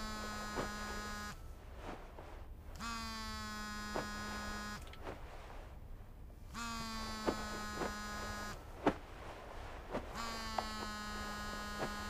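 Mobile phone ringing on a bed with its vibration buzzing: four rings of about two seconds each, a bright ringtone over a steady low buzz, repeating about every three and a half seconds.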